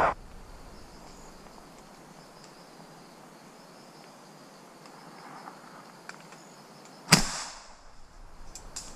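A single gunshot about seven seconds in, sharp and loud with a short ringing tail, over a quiet forest background with a faint high insect hum.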